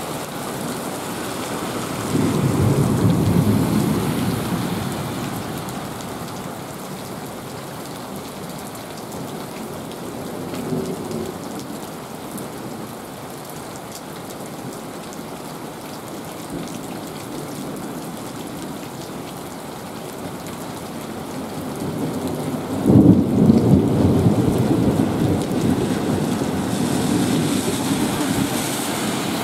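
Heavy rain pouring steadily, with thunder: a low rumble a couple of seconds in, and a sudden, louder clap about 23 seconds in that rolls on for several seconds. Near the end a car's tyres hiss on the wet road.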